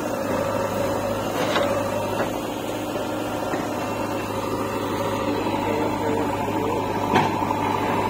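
Diesel engine of a JCB 3DX backhoe loader running steadily as it works its loaded rear bucket. Two short sharp knocks come through, about a second and a half in and again near the end.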